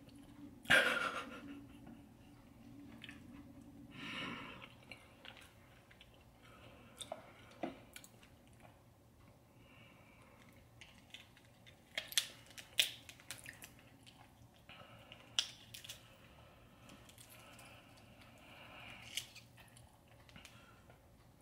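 Close-miked eating of a sauce-coated seafood boil: soft chewing and mouth sounds, broken by scattered sharp clicks and smacks.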